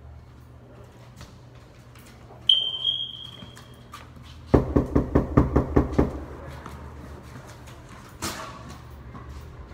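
A fist pounding rapidly on a wooden interior door, about ten hard knocks in a second and a half. Before it comes a short high squeak, and near the end a single sharp knock.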